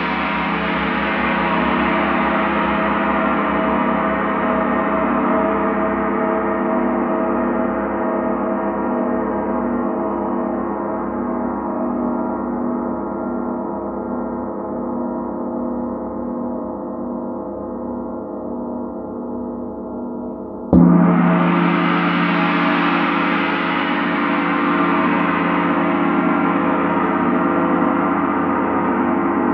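Large Paiste gong played with a soft felt mallet: a long ringing wash of many overtones that slowly fades, its high overtones dying away first. About two-thirds of the way in it is struck again, swells back up and rings on.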